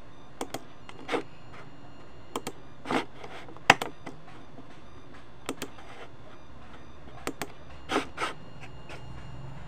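Irregular light clicks and taps, about a dozen, some in quick pairs, with the sharpest about three and a half seconds in, over a steady low hum.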